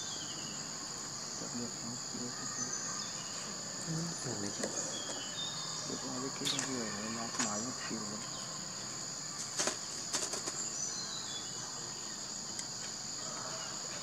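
Steady insect chorus: two unbroken high-pitched trilling tones, with a few sharp clicks scattered through.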